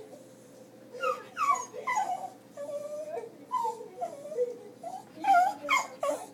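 Dog whining and yipping in a run of short cries that slide down in pitch, the loudest about five seconds in: a distressed protest at what is on the television.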